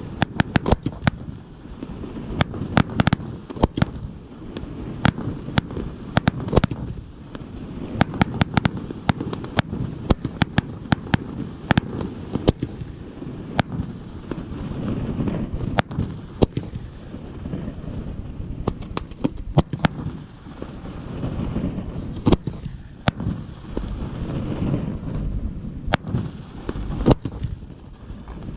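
Fireworks display: a rapid series of sharp bangs and cracking reports over a continuous low rumble of shell bursts and their echoes, densest in the first several seconds and thinning to scattered loud bangs later.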